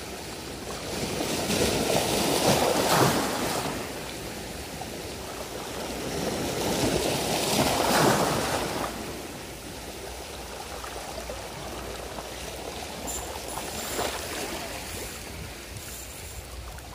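Small sea waves washing against the shore, swelling twice, about three seconds in and again about eight seconds in.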